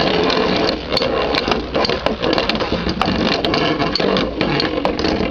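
Two metal Beyblade spinning tops, Galaxy Pegasus and Meteo L-Drago, whirring and grinding around a plastic stadium, with many sharp irregular clicks as their metal wheels strike each other and the walls.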